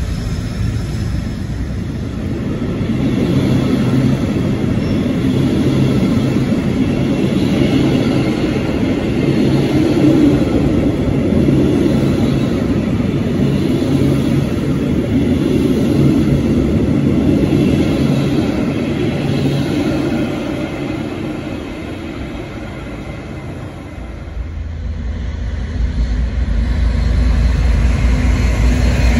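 Loaded timber wagons of a freight train rolling past close at speed, a steady rumble and clatter of wheels on rail. It eases off about 22 seconds in. Then, near the end, a deep diesel engine note of an approaching Class 56 locomotive takes over.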